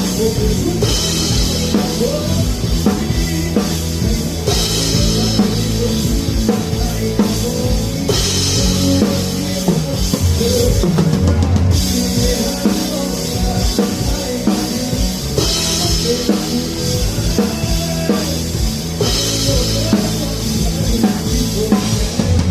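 Rock band playing live, heard from beside the drum kit: a steady kick and snare beat under a stepping bass line, with a bright cymbal wash about every four seconds.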